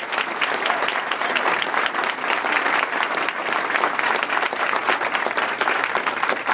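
Crowd applauding: many people clapping at once, a dense, steady run of hand claps.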